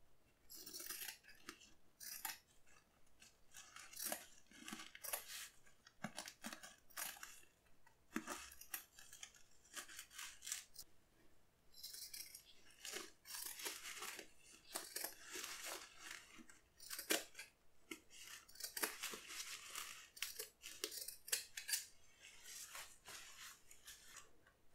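Scissors snipping through the nonwoven fabric and absorbent pad of a disposable incontinence pant: many quick, uneven cuts with crinkly rustling of the material as it is handled, pausing briefly about halfway through.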